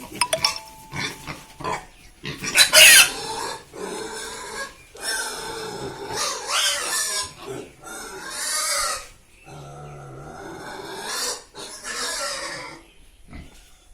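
Domestic pigs squealing in a run of loud, shrill cries a second or two apart, the loudest about three seconds in.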